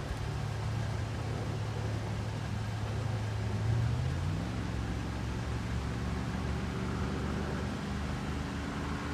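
Steady low mechanical hum over a rushing noise, its pitch rising briefly about four seconds in.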